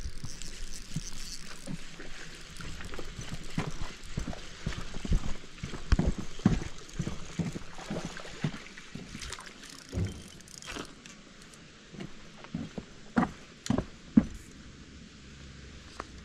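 A hooked largemouth bass splashing at the surface as it is reeled in on a baitcasting reel and lifted from the water, with irregular handling knocks and rustles. Several sharp knocks come in the last few seconds.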